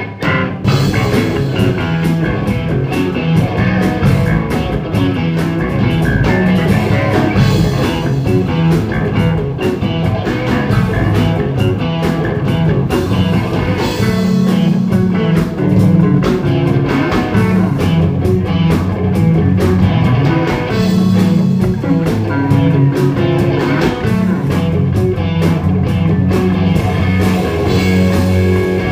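Live rock trio of electric bass guitar, drum kit and electric guitar playing together, with a bass line stepping between low notes and cymbals ringing over the kit.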